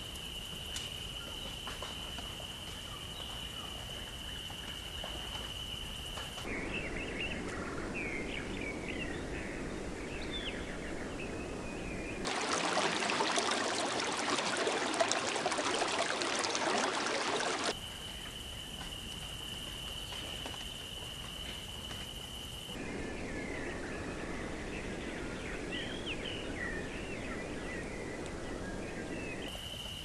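A looped nature soundtrack that switches abruptly every few seconds. A steady high tone gives way to small birds chirping over a rushing hiss. Then comes a louder burst of rain-like rushing noise, and the sequence runs again.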